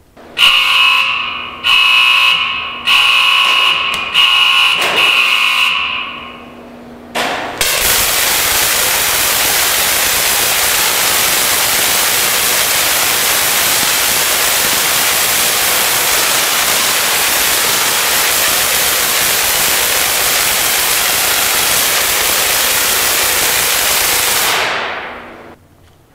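An alarm-like warning tone sounds in about four pulses. Then, about seven seconds in, a 75,000-volt electric arc strikes onto a small plastic toy soldier and sizzles steadily for about seventeen seconds before dying away.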